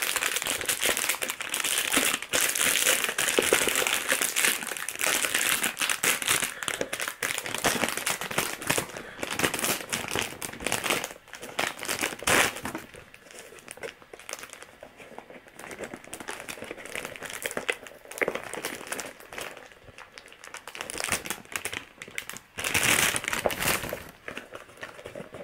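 Sealing wrap being torn off a boxed perfume and crumpled in the hands. The crinkling runs dense and loud for about the first half, thins to scattered rustles, then comes back in a loud spell near the end.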